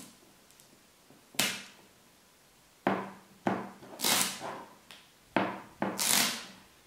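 Adhesive dust-removal sticker being pressed onto a smartphone's glass screen and peeled off again, lifting dust before a tempered-glass protector is fitted. About seven short, sharp sounds, each fading quickly.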